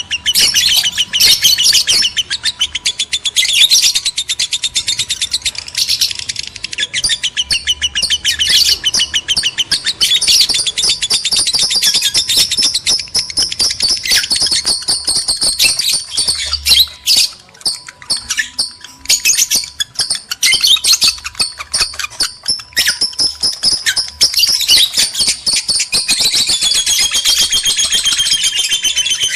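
Lovebirds chattering in rapid, high-pitched runs of chirps and squeaks, the excited calling of birds in breeding condition used as a lure to stir other lovebirds to mate. Near the end the calls change to an unbroken run of gliding, whistled notes.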